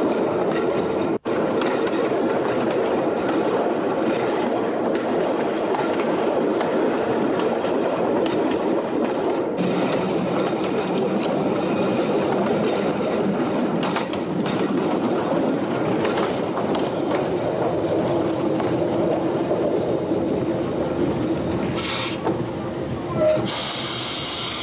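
Opicina tram running along its track, heard from aboard: steady wheel-on-rail rumble with rail clatter and a steady hum. Near the end the noise eases as it slows at a stop, with two short hisses.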